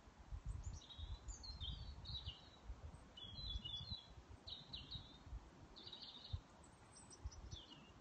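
Blackbirds calling: several short bursts of high, chattering calls, then a quick run of sharp ticking calls near the end.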